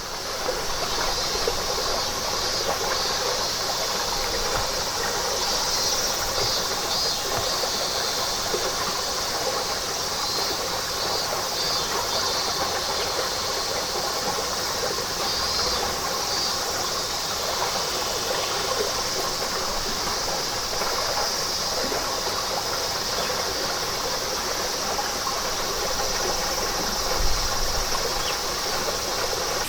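A chorus of cicadas, a steady high, hissing drone that pulses now and then, over the even rush of running water.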